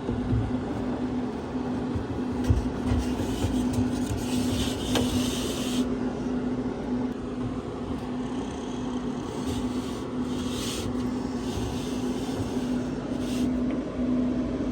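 A motor running steadily with a constant hum, with a few stretches of hiss on top of it.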